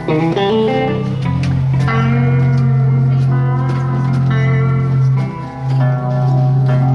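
A band playing guitar music live at a sound check, with changing guitar notes over a steady low held note.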